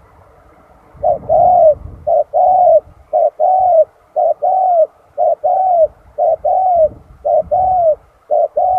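Spotted dove cooing: a short note followed by a longer arched coo, repeated about once a second, starting about a second in.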